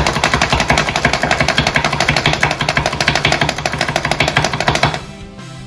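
Manual plunger food chopper pumped rapidly on a cutting board, its blades mincing jalapeño: a fast, even clacking that stops about five seconds in.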